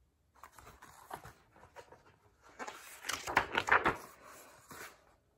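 Pages of a picture book being flipped and handled: irregular paper rustling and flapping, loudest about three to four seconds in.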